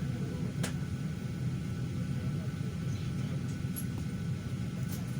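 Steady low hum of an airliner cabin's air-conditioning and ventilation with the aircraft at rest, carrying a few faint steady tones. A single sharp click about two-thirds of a second in.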